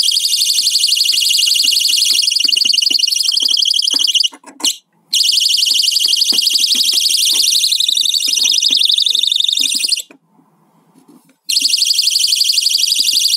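JD-188 security alarm sensor's 90 dB siren sounding as a loud, shrill, rapidly pulsing electronic tone. It cuts off about four seconds in, gives a brief chirp, and resumes a moment later. It stops again about ten seconds in and restarts about a second and a half later.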